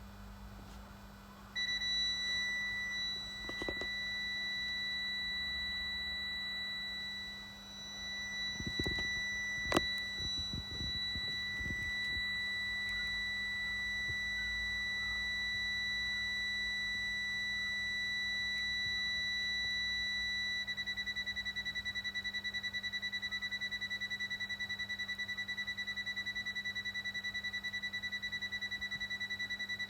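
Guardall PX500 intruder alarm sounding its high-pitched entry/exit timer tone. It is steady at first, then about two-thirds of the way through it switches to a rapid pulsing beep, the final warning that the timer is running out. A few knocks and one sharp click are heard about ten seconds in.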